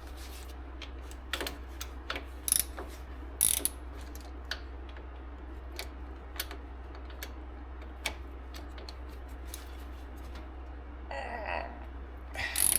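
Hand ratchet wrench clicking in irregular strokes, with scattered sharp metal clicks over a steady low hum.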